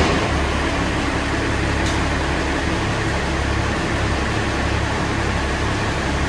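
Tractor engine running steadily, with no change in speed.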